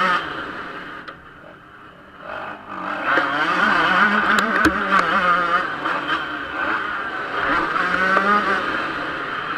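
Yamaha YZ125 two-stroke single-cylinder motocross engine heard from the rider's helmet: the throttle shuts just after the start and the engine drops low for about two seconds, then it is opened hard again around three seconds in and held at high, wavering revs.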